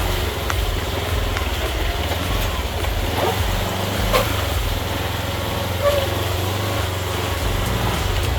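UTV engine running steadily under way on an off-road trail, with a few scattered knocks and rattles.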